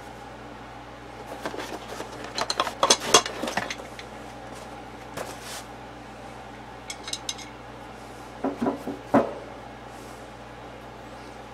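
Steel micrometers and hand tools being handled and set down on a paper-towel-covered bench: two clusters of clinks and knocks, a few single taps between them, and a brief run of light ticks about seven seconds in. A steady hum runs underneath.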